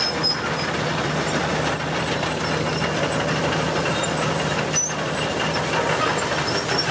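Super Sentinel steam waggon running at a slow steady pace: a steady mechanical running noise with a low hum underneath.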